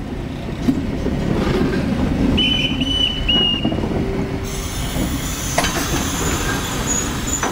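Metre-gauge electric railcar and trailing coach of the Ferrovia Mesolcinese rolling slowly on street track. The running gear gives a low rumble, and the wheels let out a high squeal twice in quick succession about two and a half seconds in. A single sharp knock comes a little after five seconds in.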